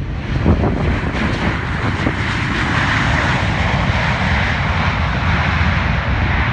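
Boeing 737-800's CFM56 jet engines at high power in reverse thrust during the landing roll: a loud, steady rushing noise with some crackle in the first second.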